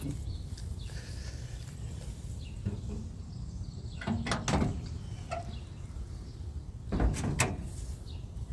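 The steel hood of a 1957 Chevrolet Bel Air being unlatched and raised: a short metallic clunk and creak about four seconds in, then another clatter and creak of the hood hinges about seven seconds in.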